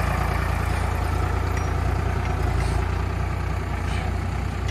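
Sonalika DI 60 tractor's diesel engine running steadily as it pulls a loaded soil trolley past.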